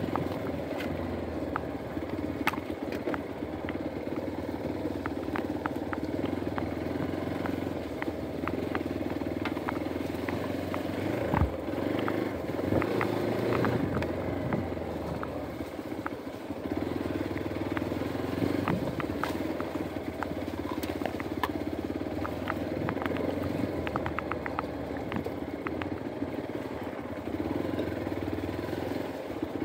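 Hero Xpulse 200 4V's single-cylinder engine running steadily at low trail speed, with frequent short clicks and knocks over it.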